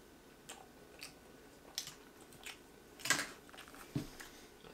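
A person eating: quiet chewing and mouth noises with small scattered clicks, and a louder brief rush of noise about three seconds in.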